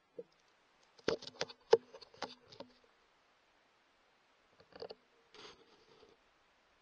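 A quick cluster of small, quiet clicks and knocks about a second in, then a couple more faint clicks and a soft rustle a little past the middle: close handling noise on a scoped rifle.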